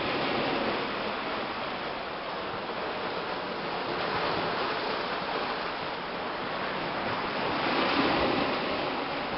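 Small Baltic Sea waves washing onto the stony shore and around the iced pier pilings, with a steady surf noise that swells louder a few times, most strongly about eight seconds in.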